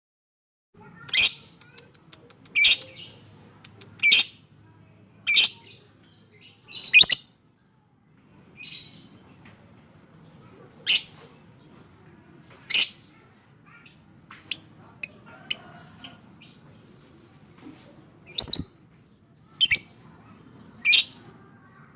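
Lovebird giving about ten short, sharp, high-pitched shrieks one to two seconds apart, with a pause in the middle and a run of softer short chirps between them.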